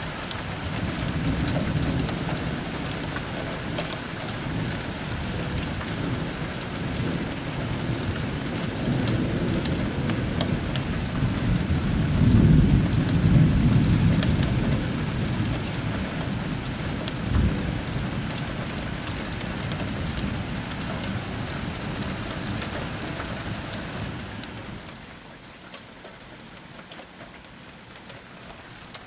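Thunderstorm: steady heavy rain with long rolling thunder that swells to its loudest about halfway through. A brief sharp knock comes a few seconds later, and the storm settles to quieter rain near the end.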